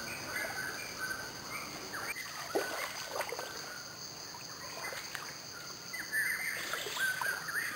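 Water sloshing and splashing around a person wading through a shallow creek, with scattered bird chirps and a steady high insect drone behind.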